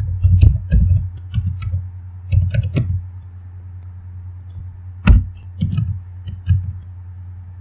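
Typing on a computer keyboard: irregular key clicks, a quick run in the first three seconds, then a few scattered presses, the sharpest about five seconds in. A steady low hum runs underneath.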